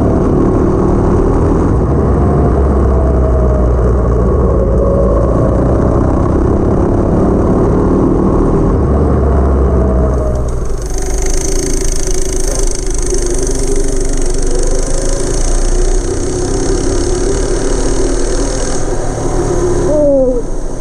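Go-kart's 212cc single-cylinder engine with a stage 1 kit running while driving, its pitch wavering with the throttle. About halfway through the sound changes abruptly, and near the end the revs drop quickly.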